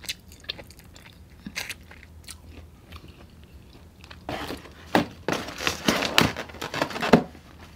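Close-miked chewing of a sauced chicken wing: soft wet mouth clicks at first, then louder crunching and rustling noises for about three seconds past the middle.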